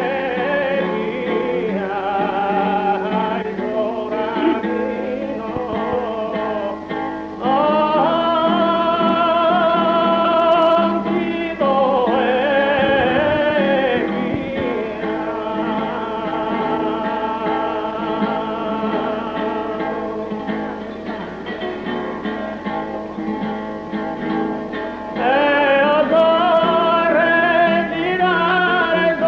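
Sardinian canto a chitarra: a man sings long, ornamented phrases with wavering, bending held notes over guitar accompaniment. The voice swells louder about seven seconds in and again near the end.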